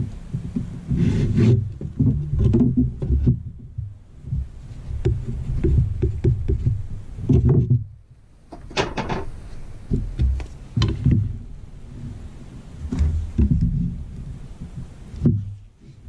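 Irregular knocks, taps and rubbing of a wooden yardstick and a tape measure being handled on a pine board, over an uneven low rumble.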